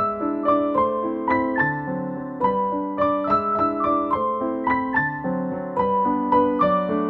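Solo piano music: a flowing line of notes struck about three times a second, each ringing on as the next begins.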